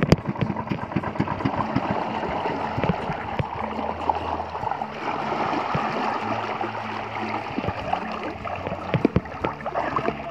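Sea water sloshing and gurgling against the hull of a small outrigger boat, with scattered light knocks. A low steady hum joins about a third of the way in.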